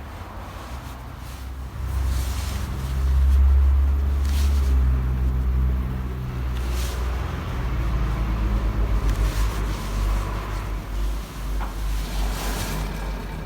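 Nissan Lafesta B30 being driven, with a low rumble that swells about two seconds in and then holds, wavering. This is the 'gorogoro' rumble that changes with road speed, which the owner puts down to a failing front hub bearing.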